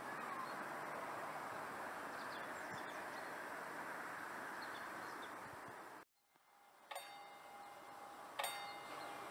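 Steady outdoor background noise with a few faint bird chirps, cut off suddenly about six seconds in. Then a bell is struck twice, about a second and a half apart, each strike ringing on.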